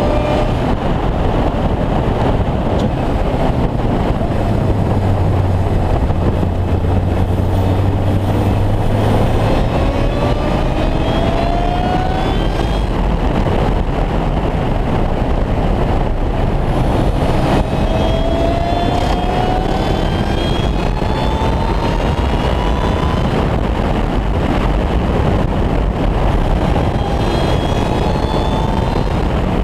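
Supercharged four-cylinder engine of an Ariel Atom 3.5 running at speed on track, its pitch climbing in several long rising sweeps as it accelerates through the gears. A loud, steady rush of wind and road noise fills the open cockpit throughout.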